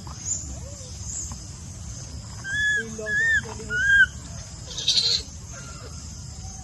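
Baby macaque giving three short, high, arched coo calls about two-thirds of a second apart, followed about a second later by a brief noisy squeak.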